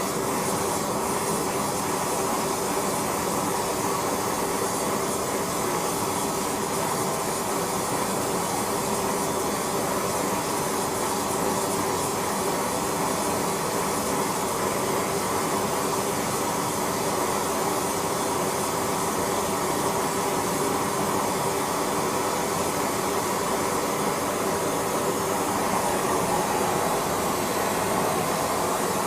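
Steady machine hiss with a hum, unchanging throughout.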